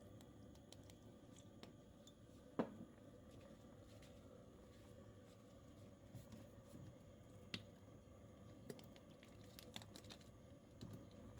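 Quiet room tone with scattered light clicks and taps, and a sharper knock about two and a half seconds in and another near the middle.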